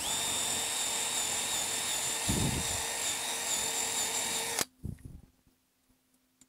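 Cordless drill running at a steady whine while drilling into a boat's bimini-top mounting, with a brief low thump about two and a half seconds in. The motor stops abruptly after about four and a half seconds.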